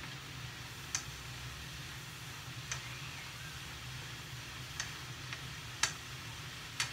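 Bean sprouts and pork sizzling in a frying pan as they are stirred with chopsticks, which click sharply against the pan about six times at uneven intervals, over a steady hiss and low hum.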